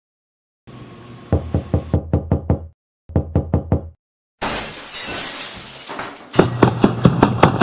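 Two short runs of rapid sharp clicks, then a loud sudden crash like something shattering that fades away, then a drum beat starting near the end.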